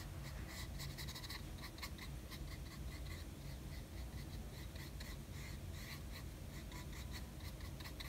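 Small flat paintbrush stroking and dabbing wet gouache onto sketchbook paper: faint, short brushing scrapes, about two or three a second.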